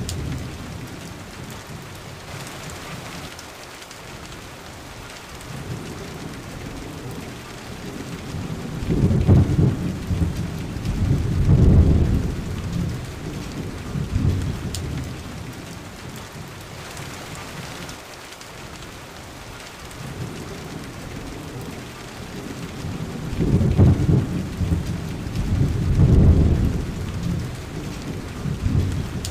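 Steady rain with two long rolls of thunder, each swelling twice, about ten seconds in and again near the end.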